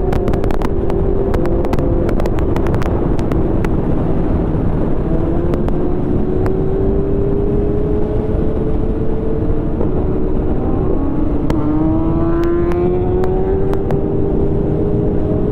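Suzuki Hayabusa's inline-four engine pulling at highway speed under heavy wind rush, its pitch climbing slowly twice as the bike accelerates, the second climb starting about ten seconds in.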